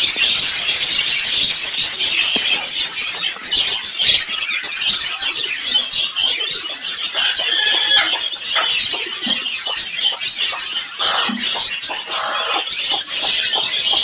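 Dense, continuous high-pitched chirping and twittering of many caged birds, with a few short lower calls toward the end.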